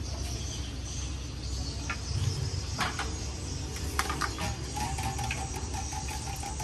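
Street-food stall cooking noise: a steady hiss and low hum, with a few sharp clicks and clinks of metal utensils and a stainless steel strainer against the pots. A faint steady tone comes in about five seconds in.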